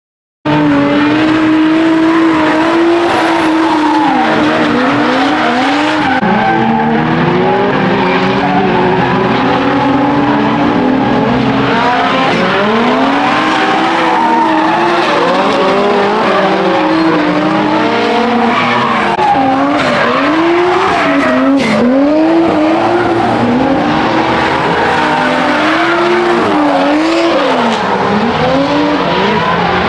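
Several drift cars running in a close tandem, their engines revving up and down in overlapping waves, with tyres screeching as they slide through the corner. The sound cuts in suddenly about half a second in.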